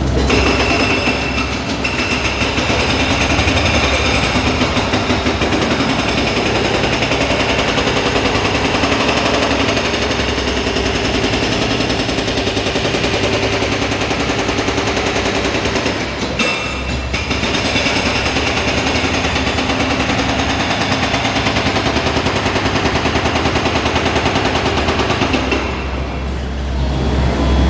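Hydraulic breaker hammering concrete in rapid, continuous blows, with a low engine hum underneath. The hammering pauses briefly about two-thirds of the way through and again near the end.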